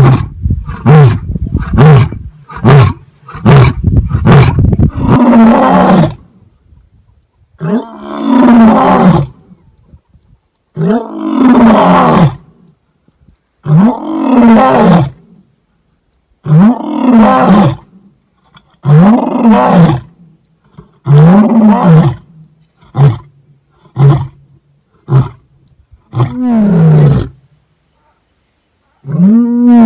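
Lion roaring: a quick run of short grunts, then a series of long roars about every two to three seconds, each rising and then falling in pitch, with a few shorter grunts near the end.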